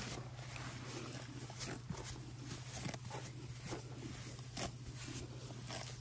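Stiff-bristled grooming brush swept over a horse's coat in quick, scratchy strokes, about two a second.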